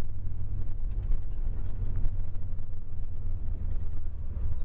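Steady low rumble of a moving tour bus, its engine and tyres on the road, heard from inside the cabin.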